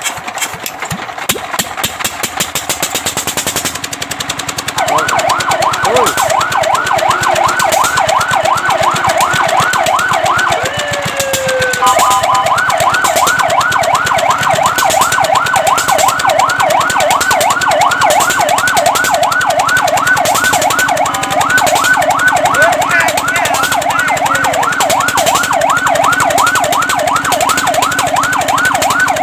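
Fire truck siren in a fast yelp, rising and falling about three to four times a second, starting about five seconds in. Near the eleventh second it breaks briefly into a single falling tone, then resumes with a steady two-note tone sounding under the sweeps. Before the siren starts, a fast steady pulsing noise.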